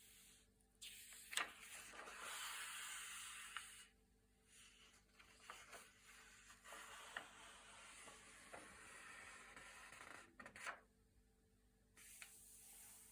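Thick glossy paper pages being turned by hand, rustling and swishing in stretches with short pauses between, and a few sharp snaps of the stiff paper, the loudest a little over a second in.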